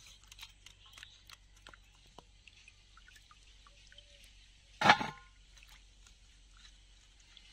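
Hand swishing and lifting pieces of ash gourd in a steel bowl of lime water, rinsing off the lime soak: small splashes and drips, then one louder splash about five seconds in.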